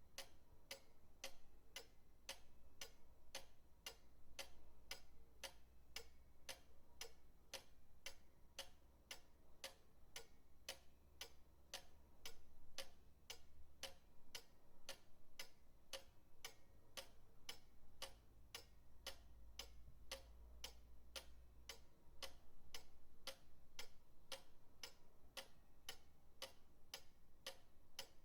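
Pendulum clock ticking steadily and quietly, about two ticks a second.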